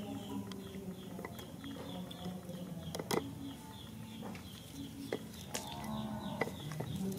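Sharp knocks and rubbing from a young monkey pawing at the camera right against the lens, several times, the loudest about three seconds in. Under them runs a steady low hum of held tones.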